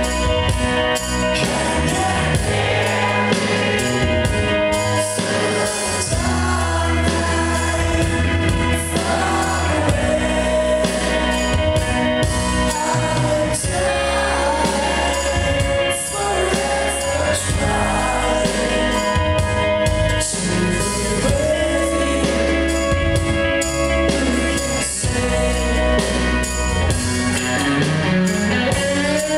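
Live rock band playing a song, with a male lead singer over electric guitar, bass guitar, drums and keyboard.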